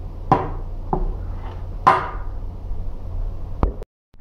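Four light knocks and clinks as a metal-cased air-conditioner capacitor is handled and set against a wooden workbench, the third the loudest with a short ring, over a low steady hum. The sound cuts out briefly near the end.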